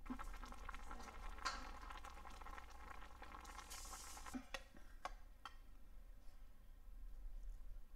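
Corn relish in pickling brine boiling in a stainless saucepan on the stove: a faint crackling bubble with a hiss of steam. After about four seconds the boiling gives way to a few light clinks of a spoon against the pan as the relish is scooped out.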